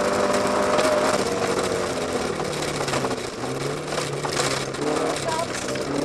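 BMW 1802 ti rally car's four-cylinder engine running hard, heard from inside the cabin; its pitch falls about two seconds in as the revs drop, then climbs again near the end.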